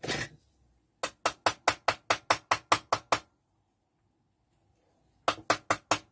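Small hammer tapping a panel pin through a brass strip and tin can with light, quick strikes, about five a second. A run of about a dozen strikes, a two-second pause, then another run starts near the end.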